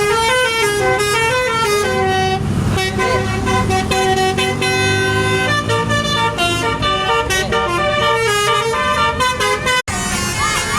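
Bus 'telolet' multi-tone air horn playing a quick tune of stepped notes over a low rumble. It breaks off abruptly near the end, and a different horn sound with sliding, whistle-like pitch glides follows.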